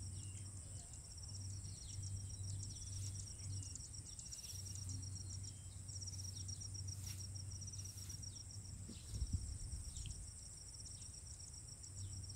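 Insects calling steadily in chorus: a high, rapidly pulsing trill with a higher continuous buzz above it. There is a brief low bump about nine seconds in.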